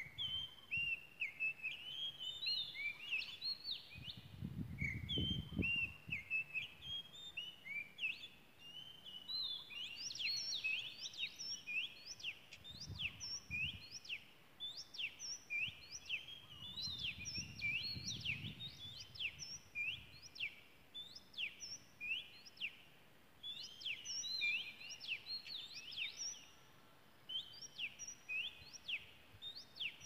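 Oriental magpie-robin singing: a long, rapid run of varied whistled notes with sharp up-and-down sweeps, pausing once for a second or so near the end.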